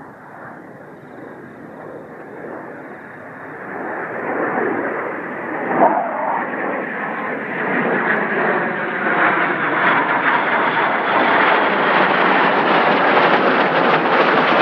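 Jet noise from a pair of F-22 Raptors flying past, a broad rushing roar that grows steadily louder as they approach and becomes rough and crackling by the end.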